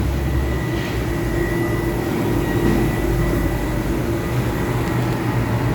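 Steady hum of running air-conditioning equipment, with a faint steady high-pitched whine over it.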